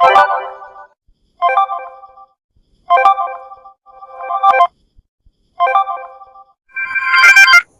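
A run of short Samsung phone notification tones played one after another: about six electronic chimes, each roughly a second long, with brief silences between. Most ring out and fade, while two swell up and cut off suddenly, the last of them the loudest.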